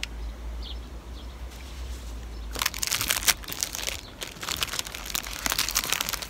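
Thin plastic wrapper of an ice cream lollipop crinkling as it is peeled open by hand. A dense run of crackles starts about two and a half seconds in.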